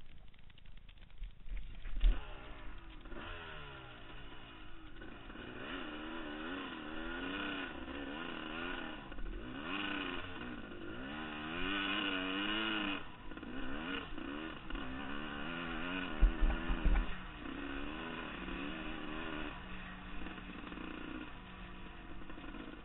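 Dirt bike engine starts about two seconds in, then runs with the revs rising and falling repeatedly as the bike is ridden. There are a few hard low thumps around sixteen seconds in.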